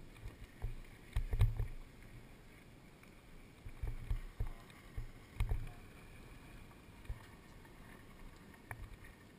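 Wind buffeting the microphone of a helmet-mounted camera in uneven low gusts, strongest about a second in and again around four and five and a half seconds, with a few sharp clicks.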